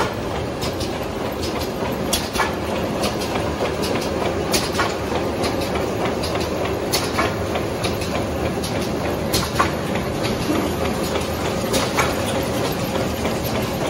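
High-speed multi-piece wet wipe folding and packing machine running: a steady mechanical clatter and whir with a faint steady hum and scattered sharp clicks.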